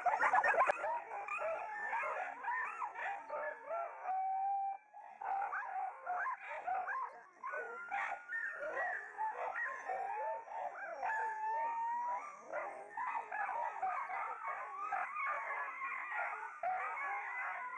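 Many caged dogs whining and yelping at once: a dense chorus of overlapping high cries, each rising and falling in pitch.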